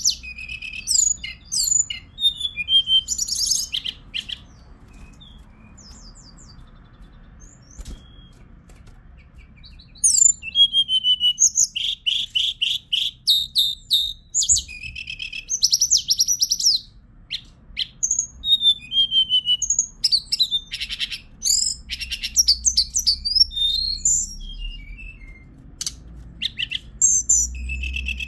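Hill blue flycatcher (Cyornis whitei) singing: phrases of high, quick notes sliding up and down with fast trills. A few seconds in the song thins to a few faint notes, then about ten seconds in it resumes, dense and nearly continuous.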